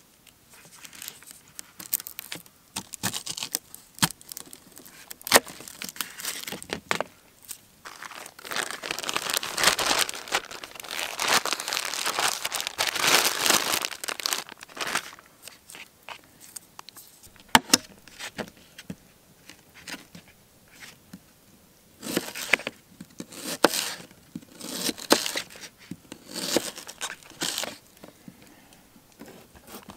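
A plastic bag crinkling for several seconds as food is handled in it. Before and after come scattered sharp clicks and scrapes of a knife cutting an onion on a paper plate.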